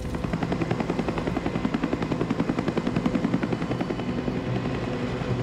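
Helicopter's main rotor beating in a fast, steady rhythm over the engine's steady drone, heard close from the aircraft's open doorway.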